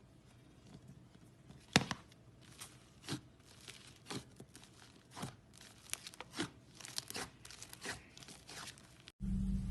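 Slime being squished and pulled apart by hand, giving irregular sticky crackles and pops. Just before the end it cuts abruptly to a steady low tone.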